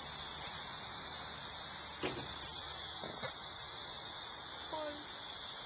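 Insects chirping in a steady high-pitched trill with a regular pulse, with a brief click about two seconds in.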